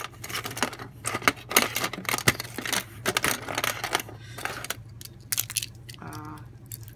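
Metal keys and key rings jingling and clinking against each other and the wire hooks of a metal key box as a set is lifted off its hook. There is a quick run of sharp clinks for the first four seconds or so, then quieter handling.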